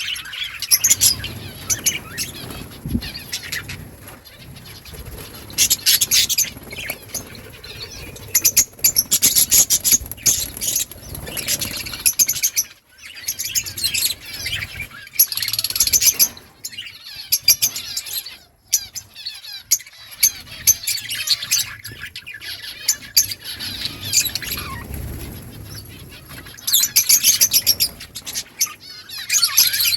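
A colony of budgerigars chirping and chattering continuously, with louder bursts of many birds calling at once every few seconds.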